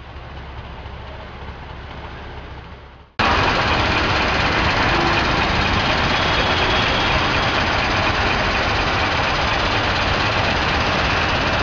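Road traffic: a low rumble of engines, which at about three seconds in jumps abruptly to a loud, steady din of traffic noise.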